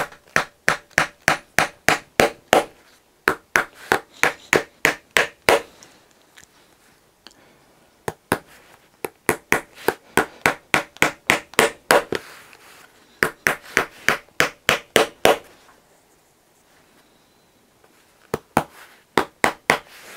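Shoemaker's hammer driving small nails into a stack of leather heel lifts to fix them. The taps come quickly, about four or five a second, in five runs with short pauses between them.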